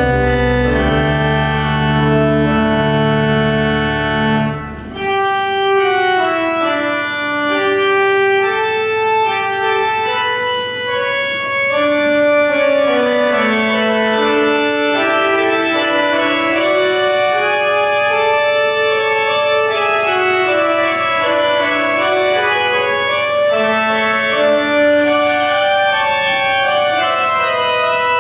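Organ playing slow, sustained chords under a gently moving melody. A low bass chord drops out about five seconds in.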